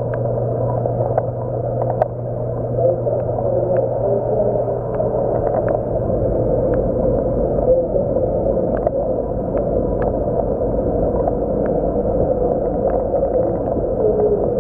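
Steady, muffled rush and gurgle of aquarium water circulation from a coral frag tank's pumps and flowing water, with a low hum that fades out about six seconds in and faint scattered clicks.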